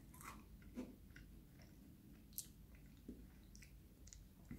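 Faint chewing of freeze-dried peach, with scattered soft crunches and mouth clicks; the sharpest click comes about two and a half seconds in.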